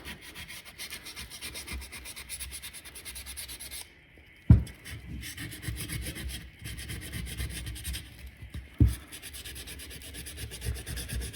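220-grit sandpaper rubbed by hand in quick, even strokes over a fuel pump's gasket mating surface, scuffing it for the gasket adhesive to grip. The rubbing stops briefly about four seconds in, and two sharp knocks come about four and a half and nine seconds in.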